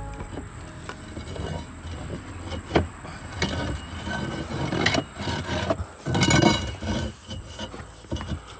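Irregular knocks, clunks and scraping of heavy objects being handled in a cramped space, with the loudest run of clunks about six seconds in, over a faint steady high-pitched tone.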